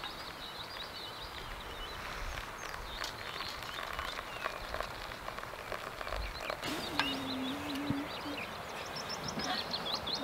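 Small songbirds chirping and singing, with faint clicks and a short low hum about seven seconds in.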